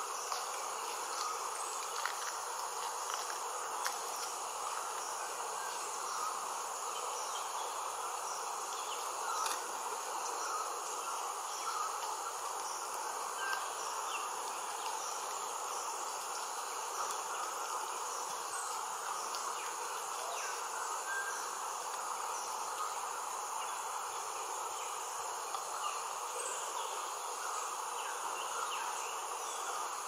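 Steady rainforest insect chorus: a constant high trilling over an even lower hum, with a few faint short chirps scattered through it.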